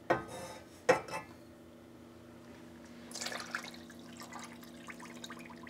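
Sugar tipped from a bowl into a small stainless steel saucepan with a brief hiss and a light knock, then water poured in from a glass measuring cup, splashing for about half a second around three seconds in. Together they start a sugar syrup.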